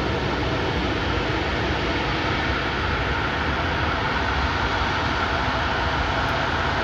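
Embraer E170 regional jet's engines running as it rolls out on the runway after touchdown: a steady roar, with a faint high whine coming up about midway.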